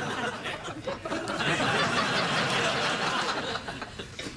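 Studio audience laughing at a joke, dying down near the end.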